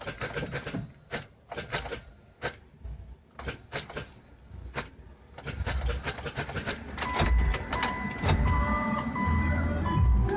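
Mitsubishi Lancer Evolution IX being started on a weak battery: a series of irregular clicks, then from about halfway a slow, labouring crank of the starter in uneven pulses, with a steady electronic tone over it that cuts out briefly now and then. The owner first blamed the starter, but the flat battery is what drags the cranking down.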